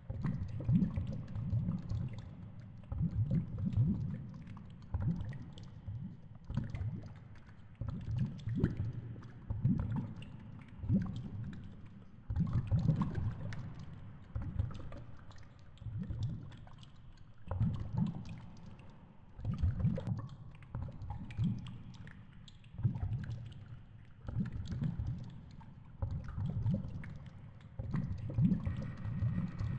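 Muffled underwater noise from a GoPro camera in its waterproof housing: low rumbling surges of water moving against the housing, one every second or two, with faint crackling above.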